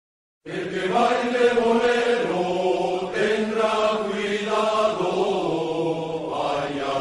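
A Castilian folk song starts after half a second of silence, with singing voices carrying the melody.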